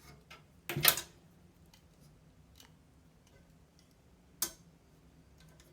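Sharp plastic clicks of a CPU cooler fan and its clips being handled and repositioned: a louder click a little under a second in, another about four and a half seconds in, and faint ticks between.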